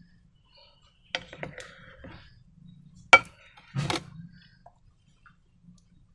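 Sharp clicks and taps of small objects being handled: two about a second in, a louder one about three seconds in, then a short noisy burst just under a second later.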